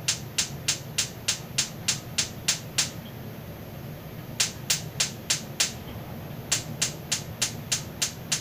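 Gas stove's spark igniter clicking rapidly, about three clicks a second, as a burner is being lit. The clicking stops twice for about a second and starts again.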